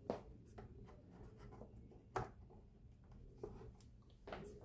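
A few faint clicks and knocks with light rubbing, the clearest about two seconds in: a mains cable being handled and plugged into a bass amplifier head.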